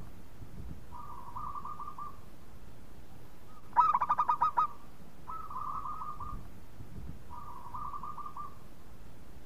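Zebra dove (perkutut) cooing: four phrases, each a quick run of short trilling coo notes lasting about a second, with the phrase about four seconds in much louder than the others.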